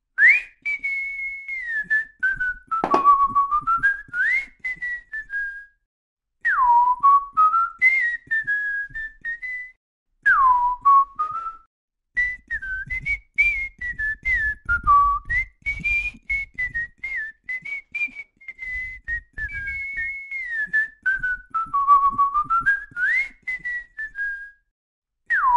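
A person whistling a tune in several phrases with short breaks between them, the notes sliding up and down, with faint clicks throughout.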